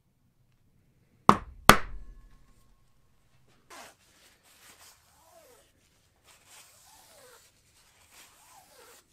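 Two sharp mallet blows about half a second apart driving a J Dixon #6 pricking iron into leather, the second leaving a faint ringing tone. Then only faint handling and rubbing sounds.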